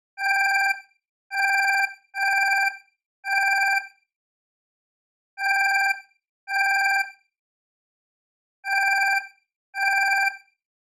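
Alarm clock beeping: eight short, buzzy beeps of a steady pitch, each just over half a second long, coming at uneven intervals with silent gaps between.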